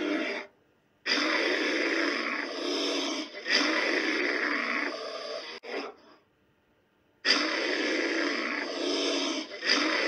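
A large animal growling in long stretches of a few seconds each, cut off suddenly by silence twice.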